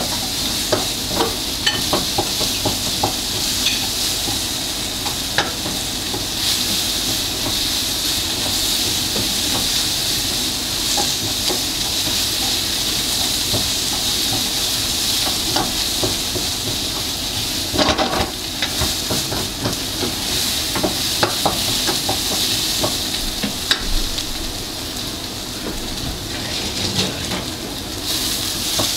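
Food sizzling steadily in hot oil in a cooking pot while being stirred, a metal utensil clicking and scraping against the pot, with a louder clatter about two-thirds of the way through.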